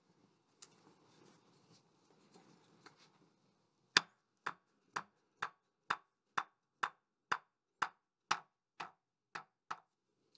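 A wooden block struck about thirteen times, roughly twice a second, tapping the David Brown 990's hydraulic piston down into its ram cylinder bore; the first knock is the loudest. Faint handling noise comes before the knocks.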